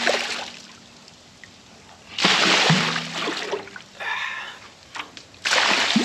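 Water splashing and sloshing in a cast-iron bathtub water trough as it is emptied of hay-fouled water, in three bursts: near the start, about two seconds in, and near the end.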